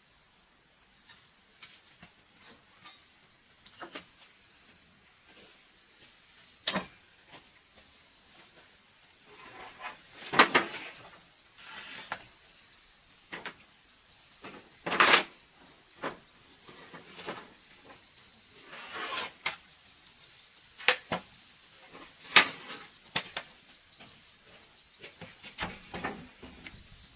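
A steady high insect trill that breaks off now and then, with scattered sharp knocks and short scrapes, the loudest knocks about ten, fifteen and twenty-two seconds in.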